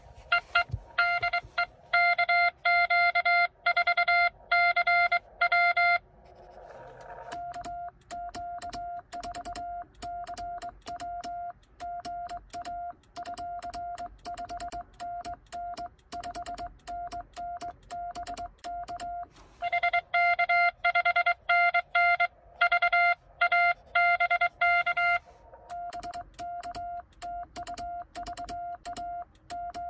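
Morse code (CW) tones from a Xiegu X6100 transceiver. A louder, harsher incoming signal plays early on and again about two-thirds of the way through. Between those passages comes the quieter sidetone of the operator's own sending on a home-made cootie sideswiper key, with its contacts clicking along with the keying.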